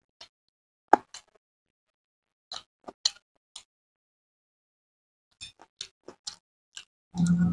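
Close-miked eating of chicken biryani by hand: sparse wet mouth clicks and smacks of chewing, with a quicker run of them late on. A short low hum near the end is louder than the rest.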